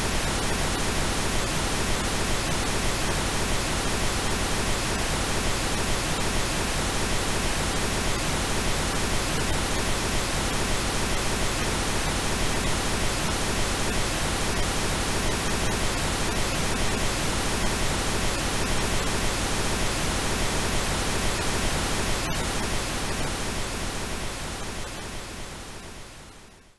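Steady generated pink noise, an even hiss spread from low to high, fading out over the last few seconds.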